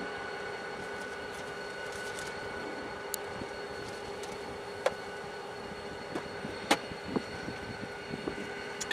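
Intermodal freight train cars rolling past: steady wheel-on-rail noise with a thin, faint squeal from the wheels. Several sharp clanks come in the second half.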